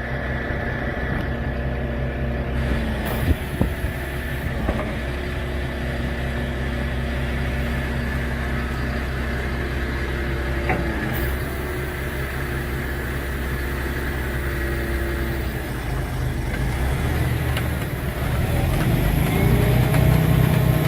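Heavy machine engine running steadily, with a few sharp knocks early on and again about halfway, then rising in pitch and level near the end.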